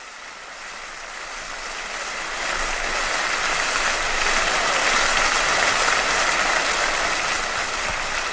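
Concert audience applauding, fading in and growing steadily louder.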